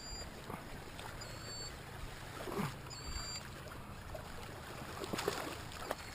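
Soft, intermittent splashes of a Heddon Super Spook topwater lure being twitched across the water surface, with a few short high chirps in between.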